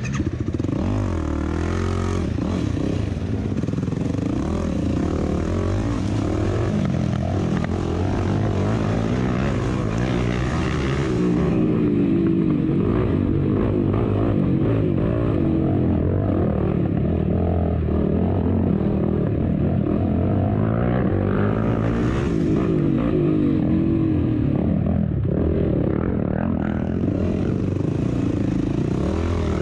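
Race vehicle's engine heard from on board, its pitch rising and falling constantly as it revs up and down through the course, with rushing noise over the top.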